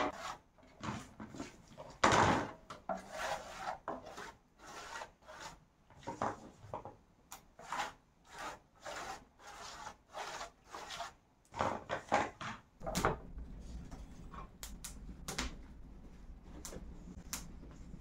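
Repeated scraping or rasping strokes, irregular, about one or two a second, that stop about thirteen seconds in, after which a steady low rumble remains.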